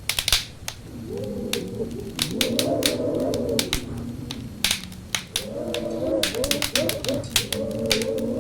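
Wood fire crackling with frequent sharp pops and snaps, over wind howling in low, wavering tones that rise and fall. The howl swells in about a second in, dips briefly, and returns stronger past the middle.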